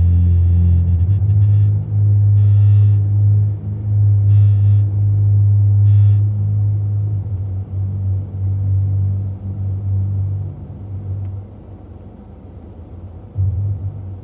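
Low, steady rumble inside a car's cabin while it waits in traffic, the idling engine and cabin drone. It drops in level about three-quarters of the way through, and a brief bump follows near the end.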